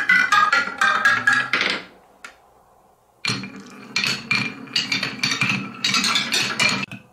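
A marble clacking down a wooden spiral tower, hopping from petal to petal in quick wooden knocks that each ring with a short pitch. The knocks stop for about a second and a half a little before two seconds in, then start again and run until just before the end.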